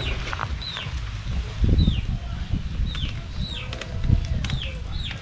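A bird chirping over and over: short, falling notes, about seven of them spaced irregularly. Under them are low rumbles, loudest about two seconds in and again near four seconds.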